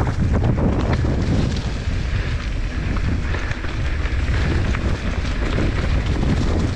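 Wind buffeting the microphone over the rush of mountain bike tyres rolling fast on a dirt trail, with scattered knocks and rattles from the bike over bumps.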